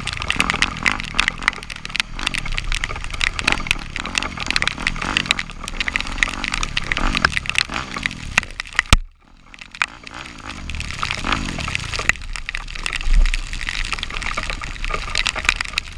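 Off-road vehicle engine revving up and down while riding through water and mud in heavy rain, with constant crackling spatter and sloshing. The sound cuts out abruptly for about a second about nine seconds in, and there is a heavy thump a few seconds later.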